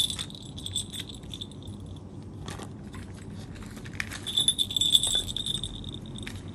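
Small bell inside a hollow plastic toy ball jingling as the ball is knocked and rolled: a sudden jingle at the start, then a longer jingle lasting about a second and a half, between four and five and a half seconds in. Light plastic clicks and knocks of toys run throughout.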